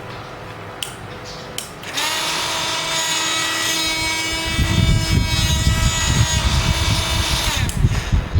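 Electric drill motor starting about two seconds in and running at a steady, high whine, then cutting off near the end. A heavy low rumble joins it about halfway through. Two short clicks come before the motor starts.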